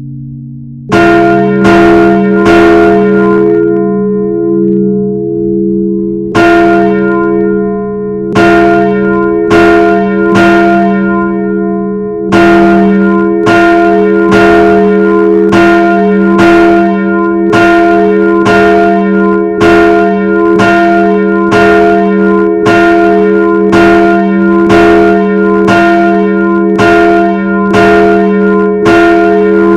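Four bells ringing, struck over and over with their tones carrying on between strikes. A few strikes come about a second in, then a pause of a few seconds, then the strikes resume and settle into a steady run of about two a second.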